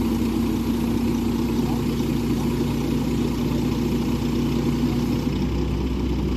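Heavy truck diesel engine running steadily at an even idle, a constant low hum, as the crane truck holds its load.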